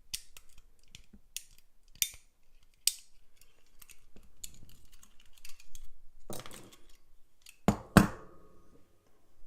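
Sharp metal clicks and a brief scrape of a wire pick working the levers inside a cut-away old English lever padlock. Two louder knocks with a short ring near the end.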